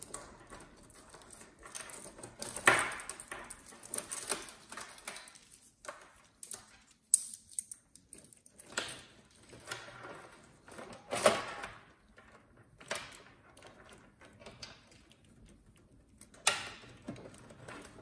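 Power-supply cables being pulled and sorted through the back of a metal computer case: irregular rustling, scraping and clicking of the cables and their connectors against the case, with a few sharper knocks.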